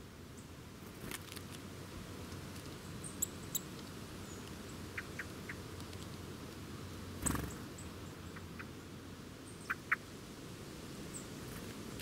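Birds feeding on scattered seed on the ground: scattered short high chirps and ticks, with one brief louder flurry a little past halfway, like wings as a bird lands.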